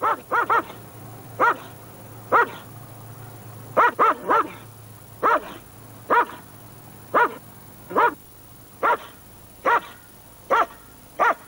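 Large caged guard dog barking aggressively: about sixteen sharp barks at roughly one a second, some coming in quick pairs and triples. The barking is threatening and attack-ready.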